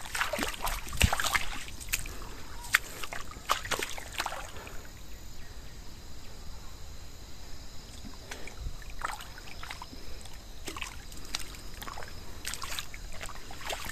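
Irregular squelches, splashes and clicks of footsteps through wet mud and shallow puddles, with a faint wet trickle underneath.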